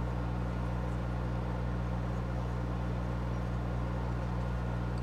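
Steady low background hum with a faint hiss, even throughout and with no clicks or knocks.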